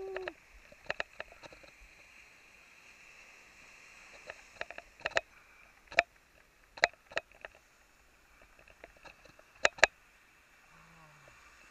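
Scattered sharp clicks and taps, some in quick pairs, over a faint steady hiss; a short low falling sound near the end.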